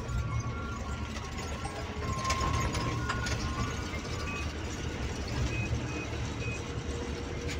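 Bus's diesel engine running on the move, heard from inside the cab, with rattling and clattering from the bodywork and fittings and a few sharper knocks.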